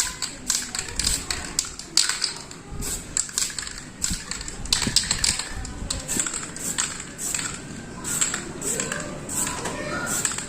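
Aerosol spray can applying primer to bicycle parts: a string of short, sharp hisses and clicks, several a second at uneven spacing.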